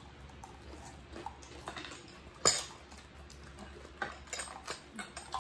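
Scattered clinks and knocks of a metal spoon against ceramic bowls and dishes at a meal table, with one sharp knock about halfway through and a quicker run of clinks near the end.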